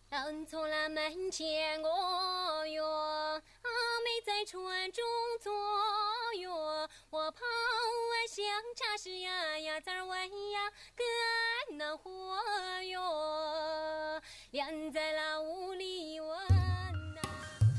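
A young woman singing a Tujia folk love song solo and unaccompanied, in long phrases with short breaths between them. Near the end, drums and cymbals come in.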